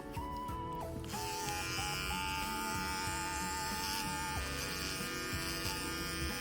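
Electric pet hair clippers buzzing steadily while trimming a small dog's coat, under background music with a simple melody.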